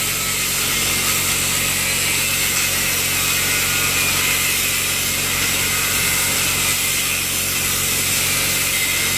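Corded angle grinder with a cutting disc running steadily as it cuts through a rusted iron wall bracket, a continuous high-pitched grinding without a break.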